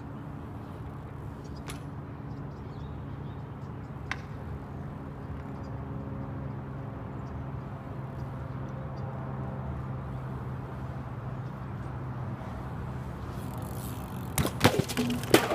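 A BMX bike and its rider landing hard on concrete near the end, a quick series of loud bangs and clatter as the rider crashes. A steady low hum underneath throughout.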